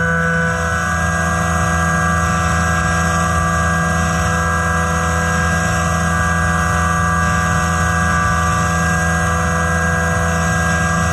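CNC vertical mill's spindle driving a face mill through a metal block, cutting steadily: a high whine of several steady tones over a low hum, unchanging throughout.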